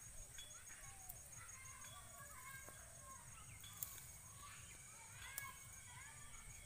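Faint bird calls: many short chirps and whistles scattered throughout, over an evenly pulsing high tone, with two sharp clicks in the second half.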